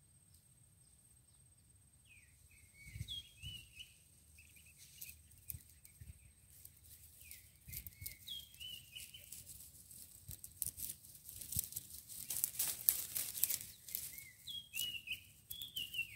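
A bird calling in quick, short chirping phrases, three bouts about five seconds apart. Under it, a faint steady high whine fades out about six seconds in, and a dry crackling rustle builds from about five seconds in and is strongest a few seconds before the end.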